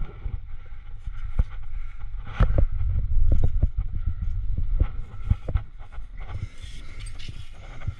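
Wind buffeting the microphone as a low rumble that swells in the middle, with many scattered clicks and knocks from a climber's rack of cams and carabiners and from hand jams against the sandstone crack.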